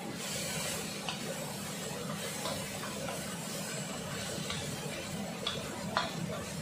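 Sliced zucchini and mushrooms sizzling in a steel wok over a gas flame as a wooden spatula stirs them, over a steady hiss and low hum. The spatula knocks or scrapes against the wok every second or so, sharpest about six seconds in.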